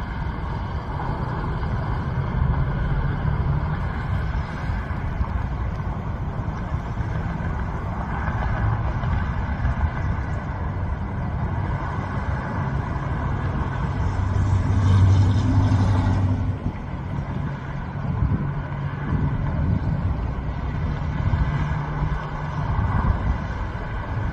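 Road traffic: a steady rumble of engines and tyres with a low hum. A louder vehicle swells about two-thirds of the way through and cuts off suddenly.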